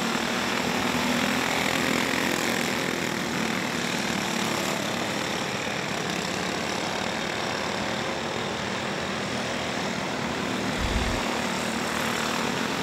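A field of racing go-kart engines buzzing as the karts circle the dirt oval, swelling and fading as they pass.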